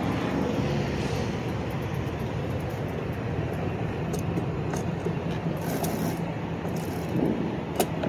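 Steady city road-traffic noise heard from an e-bike in a bike lane beside slow, idling cars: an even rumble with a low hum, and a few faint ticks in the second half.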